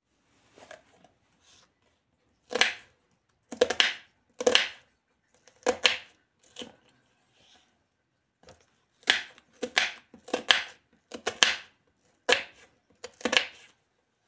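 Kitchen knife slicing a red onion on a bamboo cutting board: about a dozen separate short cuts at an uneven pace, with a pause of about two seconds midway.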